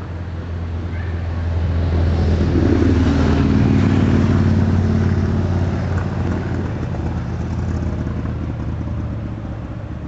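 A motor vehicle driving past, its low engine hum and road noise swelling to a peak about three to four seconds in and then fading away.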